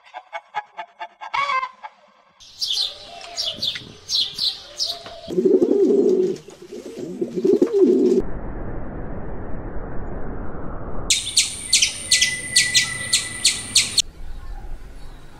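A run of short animal recordings in turn: chickens clucking, small birds chirping, pigeons giving low repeated coos, a stretch of rushing noise, then rapid high chirping.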